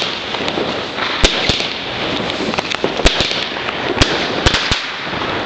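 Weco Big Crackles (Thunderbolt) firework crackling densely: a steady sizzling rattle of many small cracks, with about half a dozen louder sharp cracks spread through it.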